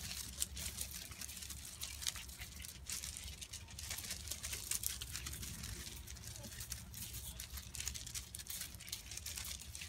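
Rustling, light patter and scattered small clicks of five-week-old Labrador puppies scrambling around a live bird, over a steady low rumble.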